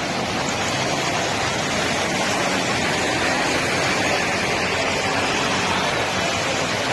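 Steady rushing noise of traffic and water on a flooded street, with no single event standing out.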